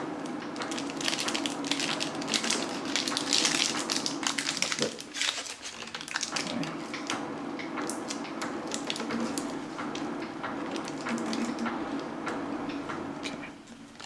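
Rubber band being stretched and wound tightly around a wax-paper-wrapped cue forearm, the wax paper crinkling with a steady run of small clicks and rustles as the band is pulled over it. The winding clamps freshly epoxied points and veneers while the glue sets.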